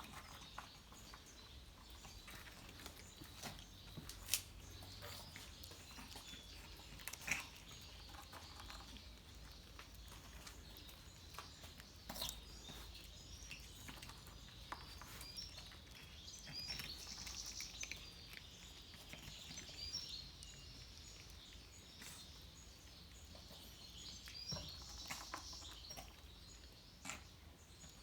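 Faint outdoor ambience of scattered small clicks and taps, with birds chirping lightly at times.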